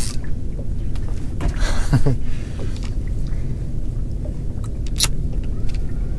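Steady low rumble of wind buffeting the microphone out on open water, with a short breathy sound about one and a half seconds in and a single sharp click about five seconds in.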